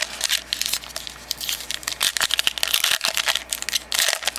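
Wrapper of a baseball card pack crinkling and tearing as it is opened: a dense run of crackles with no pause.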